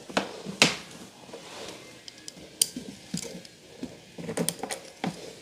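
Hand screwdriver and a small metal mounting plate clicking and tapping against an IKEA MICKE desk panel while a screw is set by hand: scattered sharp clicks, the loudest about half a second in.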